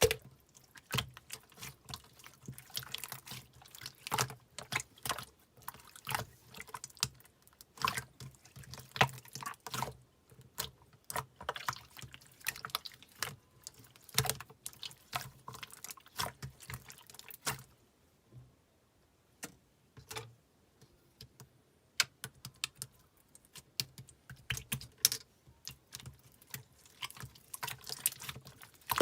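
Slime being squished and pressed by hand, making irregular wet clicks and crackling pops in clusters, with a short pause about two thirds of the way through.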